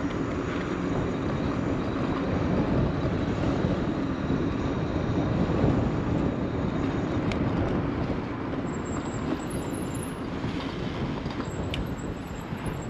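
Wind buffeting the camera microphone: a low, gusting rush of noise that eases off somewhat over the last few seconds.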